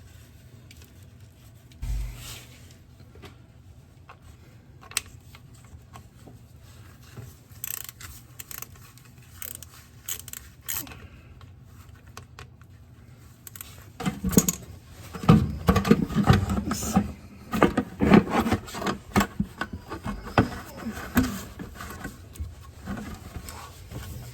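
Hand tools and metal parts clinking, knocking and scraping during work on a VW Vanagon's fuel pump and its fittings. There are scattered clicks at first, then a dense run of knocks and scraping from about fourteen seconds in.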